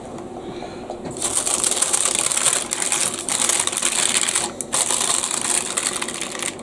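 Baking parchment paper crinkling and rustling as it is peeled back from around a freshly baked loaf. It starts about a second in, a dense crisp crackle with a brief pause midway.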